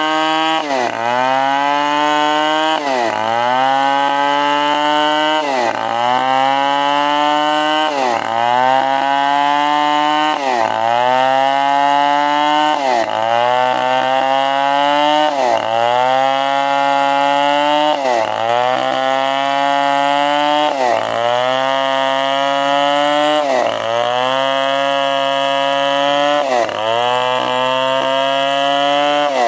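Stihl 070 two-stroke chainsaw running hard while sawing timber. The engine note dips sharply and climbs back about every two and a half seconds.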